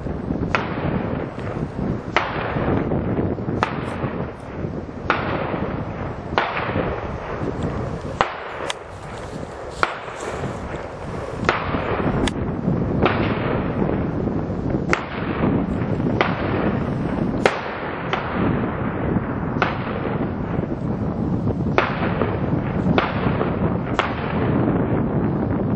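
Distant gunshots from a mix of small-calibre guns and shotguns, about twenty sharp cracks fired in an uneven string roughly a second apart. Steady wind noise on the microphone runs under them.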